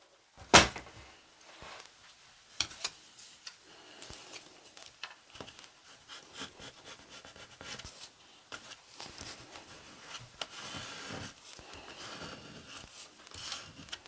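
A plastic card rubbed back and forth over a paper photo card on a wooden table: a faint, continuous scraping with small scattered ticks, a little stronger about nine to eleven seconds in. One sharp tap about half a second in.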